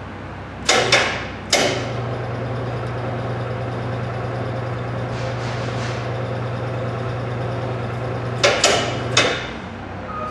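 Heavy steel clanks, two or three in quick succession about a second in and again near the end, with a steady electric hum running between them from an overhead crane hoist carrying a centrifuge rotating assembly.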